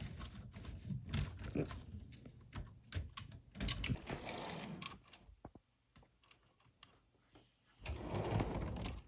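Irregular light clicks and rattles of small plastic and metal model train parts on a layout, as cars and track pieces are handled, with a pause of about two seconds after the middle.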